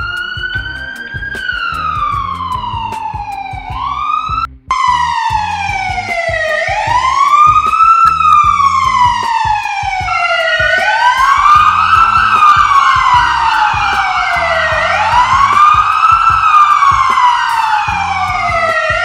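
Emergency-vehicle siren wailing, rising quickly and falling slowly in pitch about every four seconds. It cuts out for a moment about four and a half seconds in, and from about ten seconds in a second siren tone is layered over it.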